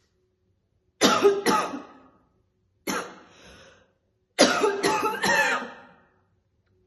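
A woman's heavy smoker's cough in three fits: two hard coughs about a second in, a single cough near three seconds, then a run of three quick coughs.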